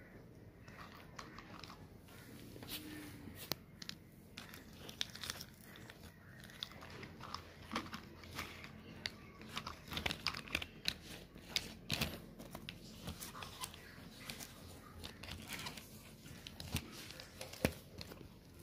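Small plastic toy vehicles and figures being handled and pushed about by hand: irregular light clicks, clacks and rustling, busiest in the middle.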